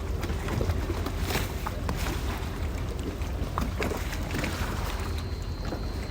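Canal water lapping against gondola hulls, with irregular short slaps and knocks over a steady wash of water and a low rumble.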